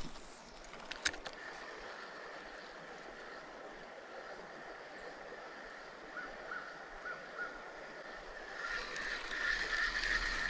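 Creek water running steadily, growing louder near the end, with a sharp click about a second in.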